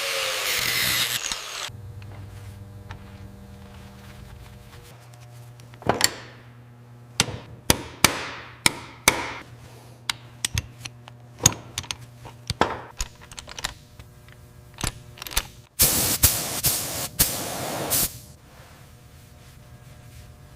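Workshop tool sounds over a faint steady low hum. A power tool runs and stops about two seconds in, then come a dozen or so sharp knocks with short ringing tails spread over several seconds, and another short power-tool burst near the end.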